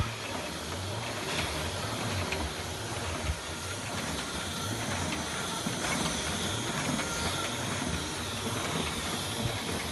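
Automatic mask-making machine running: a steady mechanical hiss and low hum, with a few light clicks scattered through.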